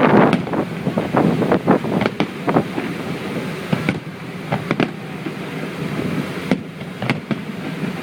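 Fireworks going off: a quick run of bangs at the start, then scattered pops and crackles over a steady background rush.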